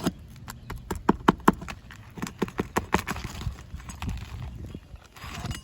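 Uneven series of sharp knocks and taps as a metal roof snake tool works against asphalt shingles on a roof deck, the loudest and closest-spaced knocks about a second in.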